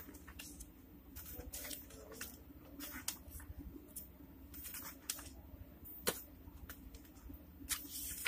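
Pages of a thick field-guide book being turned by hand: faint paper rustles and flicks, with a sharper flick about six seconds in.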